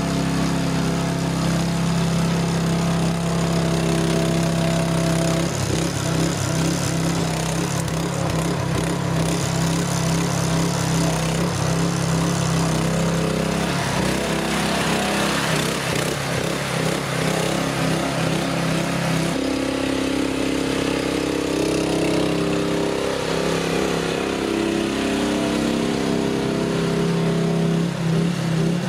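Engine of a Jansen RD-500 tracked mini dumper with hydrostatic drive running as the machine travels and pushes sand with its front blade. The hum is steady at first, turns uneven from about five seconds in, and settles back to a steady tone in the second half.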